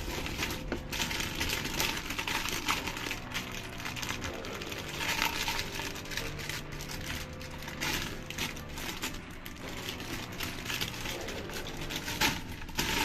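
Hands handling plastic toys and packaging: a run of small clicks, taps and rattles with some crinkling.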